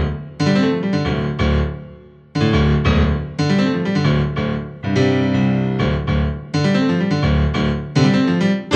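Digital piano playing a sampled grand-piano sound, struck in full chords one after another, each chord ringing and dying away, with a brief quieter dip about two seconds in.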